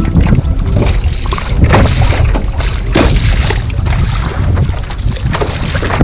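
Strong wind buffeting the microphone, with choppy water slapping and splashing against a kayak's hull over and over.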